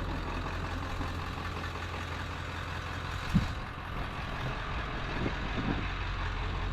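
A motor vehicle running steadily, with a low hum and even road or wind noise, and a single knock about three and a half seconds in.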